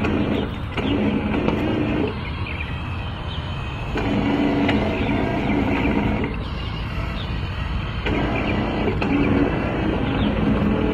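1:12-scale RC hydraulic excavator's electric pump motor humming steadily as the long boom and arm are worked. The hum breaks off twice, about two and six seconds in, and each time returns after a second or two.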